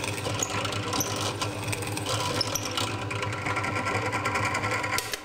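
Drill press running steadily with a low motor hum while its bit bores into a wooden block.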